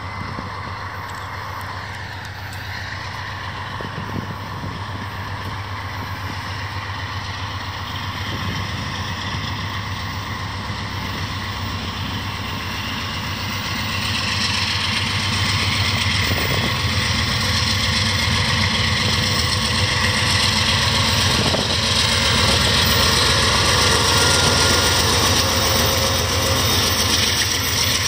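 Amtrak GE Genesis P42DC diesel locomotives pulling a passenger train away from a stop and gaining speed, with a steady low engine drone. The sound grows steadily louder, and wheel-on-rail noise fills in about halfway through as the train comes past.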